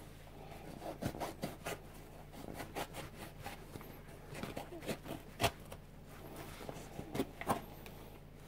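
Scissors cutting through a Nike Air Max 90 sneaker's upper and padded lining: a run of irregular snips and crunches, the sharpest about halfway through.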